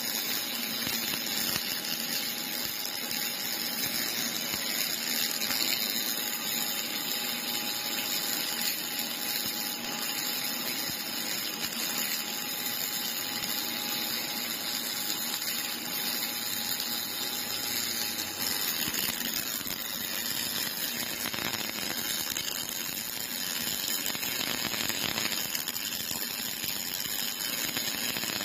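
MIG welding arc from a cobot-held torch burning continuously, a steady crackling hiss with sparks spitting off the weld.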